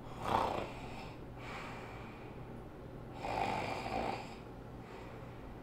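A person snoring in their sleep: two long snores about three seconds apart.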